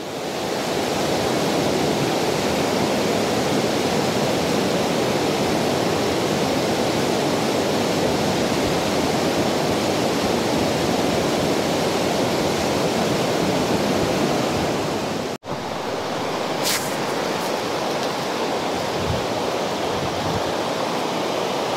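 Steady rushing of a fast river over rocks, a continuous whitewater noise. It drops out for an instant about fifteen seconds in and carries on.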